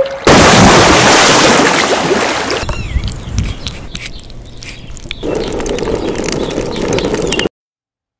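A run of short outdoor clips. First a loud rushing hiss for about two seconds, then soft wet squelching and clicks of hands rubbing masala paste onto a pomfret fish, with a bird chirping. Then a steadier rushing noise that cuts off abruptly near the end.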